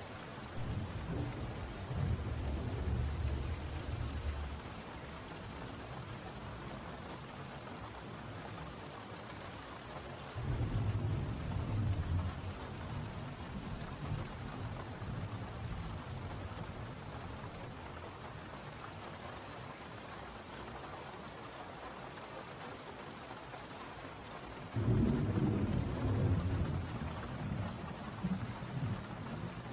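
Steady rain falling, with three long, deep rolls of thunder: one about a second in, one near the middle, and one near the end.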